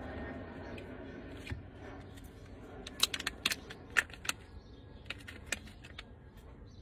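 Sharp crinkles and clicks of a small black pouch being opened and handled. They come mostly in a quick cluster about three to four seconds in, with a few more a second later.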